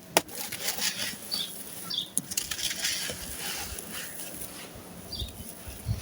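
Dry sand-cement chunks crumbling and crunching, a dense run of gritty crackles, with a sharp snap just after the start.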